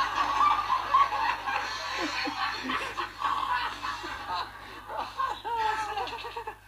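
People laughing: chuckles and snickers in repeated bouts.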